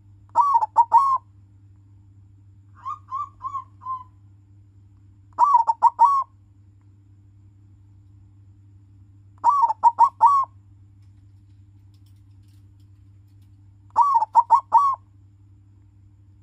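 Silver colour-morph zebra dove (perkutut) cooing its rhythmic song: four phrases of about four quick coos each, spaced four to five seconds apart. A fainter four-coo phrase comes between the first two.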